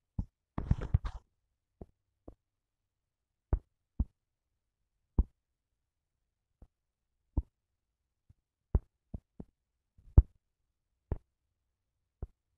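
Single soft taps at uneven intervals, roughly one a second, from typing on a phone's touchscreen keyboard. A short rustle comes about a second in.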